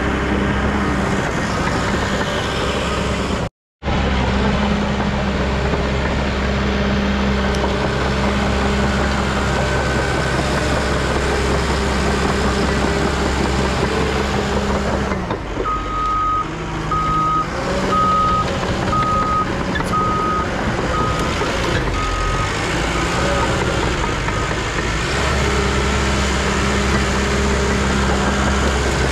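Diesel engine of a Cat D3 crawler dozer running close by, with a Cat 316 excavator working behind it. It cuts out for a moment a few seconds in. Past the middle, a backup alarm beeps about once a second for some eight seconds as a machine reverses.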